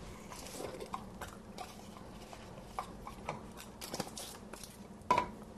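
Faint crinkling and small clicks of a foil-wrapped bouillon cube being unwrapped by hand, with a sharper tap near the end.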